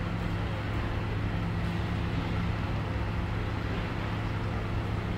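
A vehicle engine idling steadily, a low even hum that holds without change.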